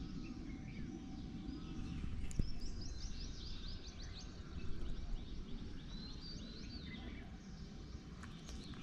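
Outdoor ambience of small birds chirping in quick, repeated calls over a low steady rumble, busiest about a third of the way in and again later.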